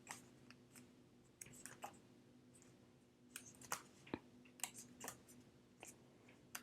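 Faint, scattered clicks and taps of small photo cards being handled, over a low steady hum.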